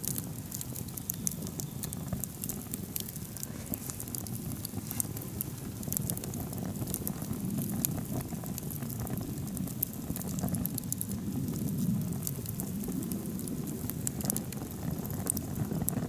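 Split-log wood fire burning with open flames: scattered sharp crackles and pops from the logs over a steady low rushing noise. The fire is still flaming and has not yet burned down to embers.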